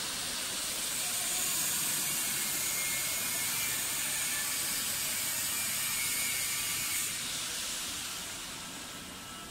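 A steady hiss from factory machinery that cuts off about seven seconds in, after which the sound dies down.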